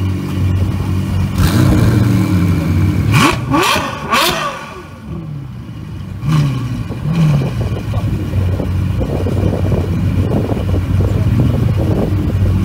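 Ferrari F12 Berlinetta's V12 running through a catless downpipe and valved catback exhaust with quad tips. It is revved in several quick sharp blips in the first few seconds, then blipped twice more briefly a little later, settling back to a steady, deep idle between and after.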